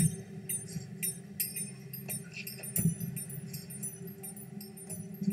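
Installation soundtrack of scattered, high, ringing clinks and tinkles, like small chimes or glass, over a steady low hum.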